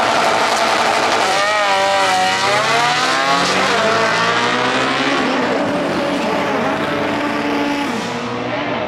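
Two drag cars, one a Honda Civic hatchback, accelerating hard off the line and down the strip, engine pitch rising and dipping repeatedly as they shift gears, the sound thinning out near the end as they pull away.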